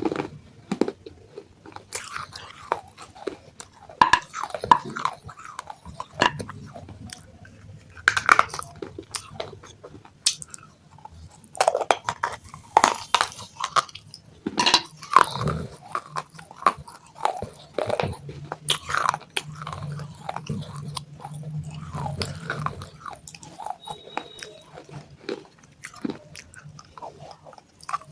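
A person biting and chewing broken pieces of fired clay pot: a run of irregular crunches and grinding chews.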